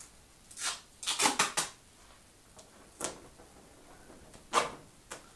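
Several short rustles and scrapes of a sheet of stiff paper and tape being handled: a quick cluster of three or four about a second in, then single ones near the middle and near the end.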